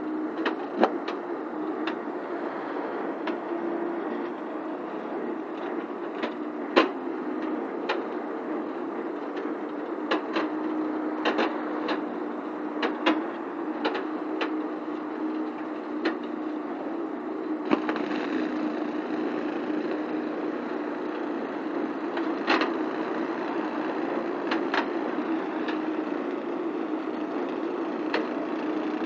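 Marolin 500 flail mulcher head on a truck-mounted articulated arm running steadily as it chops roadside grass, a constant mechanical hum with sharp cracks at irregular moments as cut material and debris strike the rotor.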